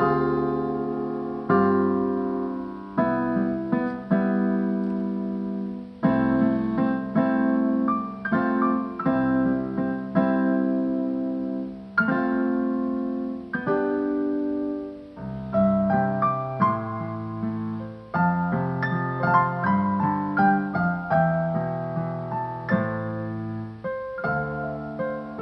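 Piano playing a slow instrumental passage of struck chords and melody notes, each note ringing and fading before the next.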